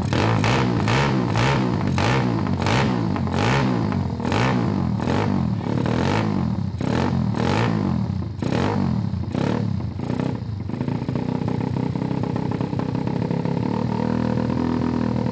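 Pitster Pro pit bike's 160cc big-bore single-cylinder four-stroke engine running just after being brought to life, revved in quick repeated throttle blips. About ten seconds in it settles into a steady idle.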